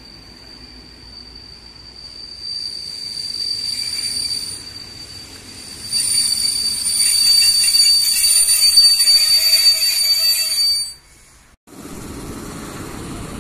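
PKP Intercity passenger coaches rolling slowly along the platform with a steady high-pitched squeal from the running gear as the train brakes. The squeal grows louder and cuts off abruptly near the end, where a lower, duller rumble takes over.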